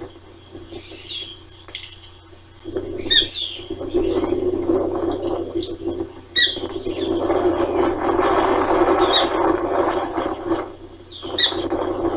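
Ospreys at the nest giving short, high, squeaky chirps: a quick cluster about three seconds in, then single chirps spread through the rest. Behind them is a rushing noise that swells loudest about eight to ten seconds in.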